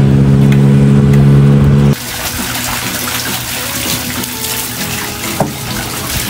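Water pouring in a steady stream from an open plastic pipe spout and splashing onto the wet concrete below, starting suddenly about two seconds in. Before it, a loud steady hum of several even tones.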